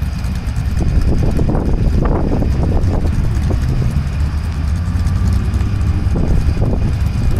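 Engines of off-road race vehicles idling in a queue, a steady low rumble with a few brief rises in the middle and near the end.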